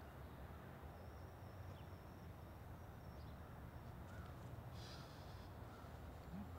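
Faint outdoor ambience: a steady low rumble with a few short, faint bird calls in the second half.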